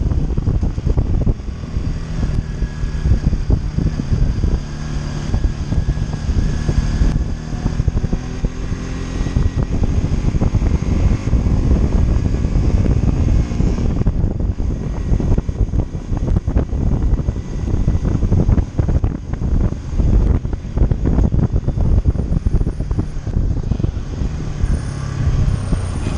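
Bajaj Discover 150F motorcycle's single-cylinder engine running under way in traffic, its pitch climbing under acceleration about a third of the way in. Heavy wind buffeting on the helmet-mounted microphone.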